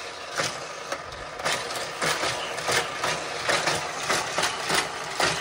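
Die-cast Hot Wheels cars racing round a four-loop track set and through its motorized booster: a steady whirring hum with a rapid clatter of clicks, about three or four a second.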